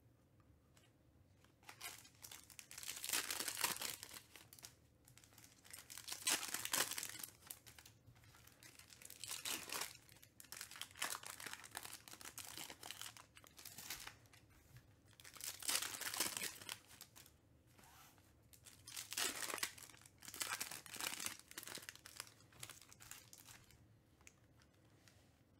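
Foil wrappers of Panini Select basketball card packs being torn open and crinkled, in about eight separate bursts of rustling a second or two long, with cards handled in between.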